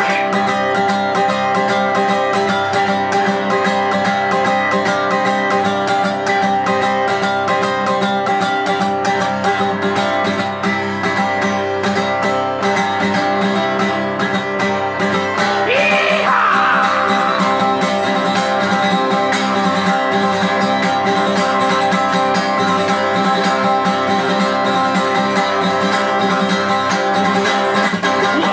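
Live acoustic guitar music, plucked string playing that runs on steadily, with a short rising sweep in pitch a little past halfway through.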